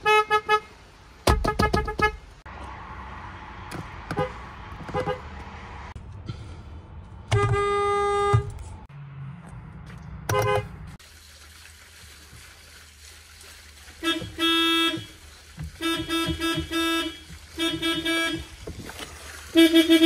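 Horns of several different passenger cars honked one after another, each with its own pitch. Most are short taps in quick pairs or triples; one is held for about a second near the middle.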